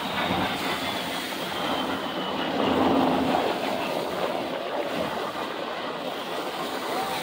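Low-flying Army helicopters: a steady rotor-and-engine rumble, with a high whine slowly falling in pitch over the first couple of seconds and swelling a little in loudness near the middle.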